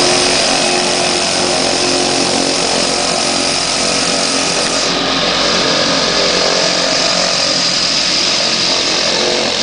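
Pacific Aerospace PAC 750XL's single Pratt & Whitney PT6A turboprop engine running loud and steady as the aircraft taxis and turns close by, with a high steady turbine whine over the propeller's buzz.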